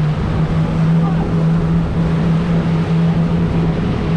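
Tour boat's engine running steadily under way, a constant low hum over rushing wind and water noise.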